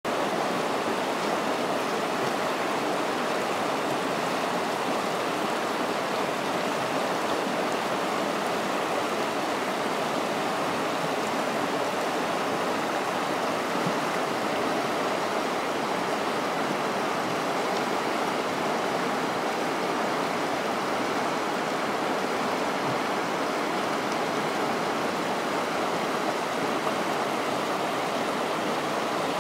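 Shallow, rocky river rushing steadily over stones and riffles: an even, unbroken water noise.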